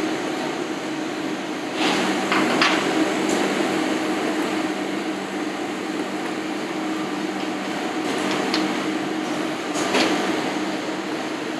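Steady drone of a commercial kitchen's ventilation and extraction hood, with a few brief clatters of utensils and pans, about two seconds in and again near the end.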